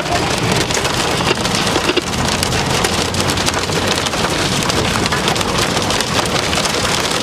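Hail and heavy rain pelting the roof and windshield of a car, heard from inside the cabin: a dense, steady clatter of countless small impacts.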